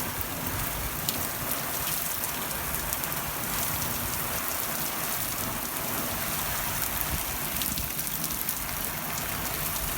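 Steady rain falling, a constant hiss with scattered individual drops ticking.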